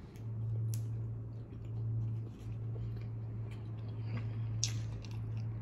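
Close-up mouth sounds of a person biting into and chewing a soft siopao bun: soft wet clicks, with one sharper click about four and a half seconds in. A steady low hum runs underneath.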